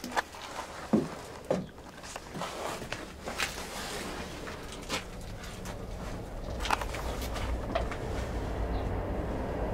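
Footsteps and scattered knocks inside a locomotive's steel body, loudest about a second in, with a low rumble building in the background in the second half.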